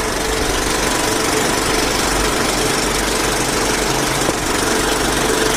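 A sewing machine running steadily at speed, a continuous even mechanical hum that does not change.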